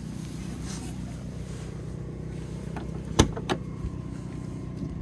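Latch of an INEOS Grenadier's rear door clicking twice, about a third of a second apart, a bit over three seconds in. A vehicle engine idles steadily underneath.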